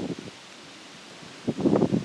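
Dry leaves rustling and crunching in two bursts: a short one at the start and a longer, louder one from about one and a half seconds in.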